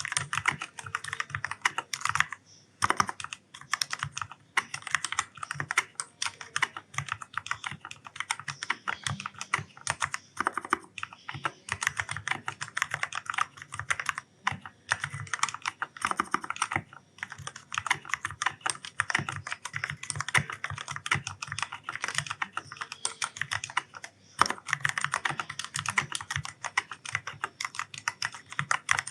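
Continuous fast typing on an Ajazz K610T mechanical keyboard with black (linear) switches: dense, uneven key clacks, pausing briefly a few times.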